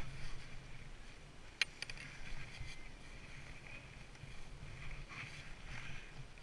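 Skis scraping and sliding on snow in uneven swishes, with low wind rumble on the microphone. There is a quick cluster of sharp clicks about one and a half seconds in.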